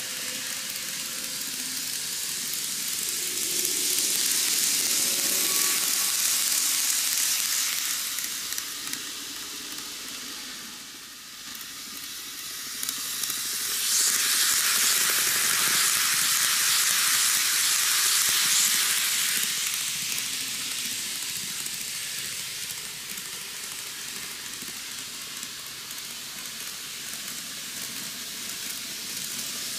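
N gauge model trains running on curved cant track: a steady hiss of small wheels and motors on the rails, growing louder twice as trains pass close by.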